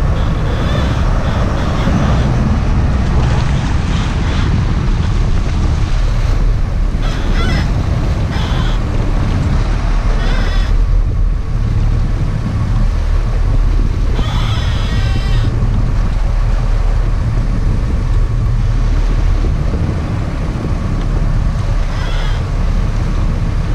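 Sportfishing boat under way: engines running with a steady loud rumble, mixed with rushing water and wind on the microphone. A few short high-pitched calls or squeals rise over it, the longest about two-thirds of the way through.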